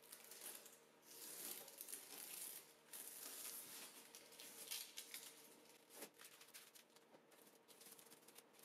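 Near silence, with faint rustling and light handling sounds from gloved hands and clothing, over a faint steady hum.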